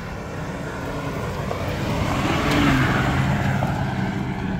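Nissan Patrol GR 4x4 driving past on a gravel track. Its engine and the crunch of tyres on gravel grow louder, peak about halfway through, then fade.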